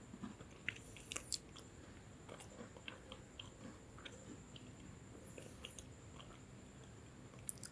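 Close-miked chewing of crunchy lemon sandwich biscuits: a scatter of crisp crackles, with louder crunches about a second in, again about five seconds in and once near the end.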